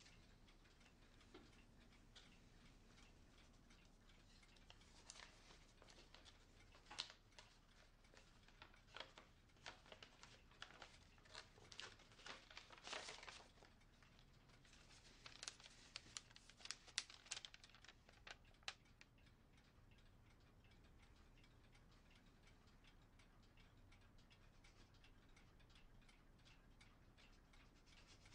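Faint paper crackling and rustling as an envelope is opened and a folded letter is pulled out and unfolded: a run of small crinkles and clicks over about a quarter of a minute, thickest midway.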